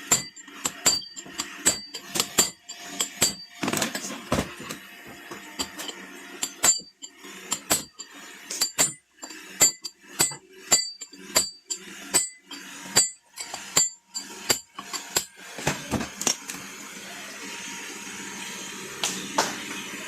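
Hand tools tapping and clinking on the metal parts of a car AC compressor's clutch and pulley: an irregular run of sharp taps, each with a brief ringing note, that stops about 15 seconds in, leaving a steady noise.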